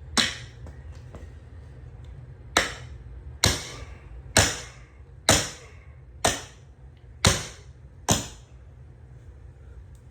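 Hammer striking a steel lawn mower blade: eight sharp, ringing blows, the first followed by a pause of about two seconds, then the rest coming about once a second.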